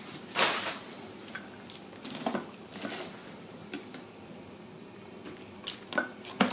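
Metal food cans being handled in a plastic storage bin: scattered clinks and knocks as cans are picked up, knocked together and set down, with a louder rustle about half a second in.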